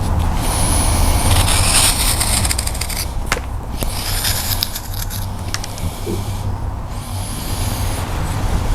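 Sharp wood-carving knife slicing through wood in three long strokes, each a crisp hissing shave: the sound of a well-sharpened blade cutting cleanly. A steady low rumble runs underneath.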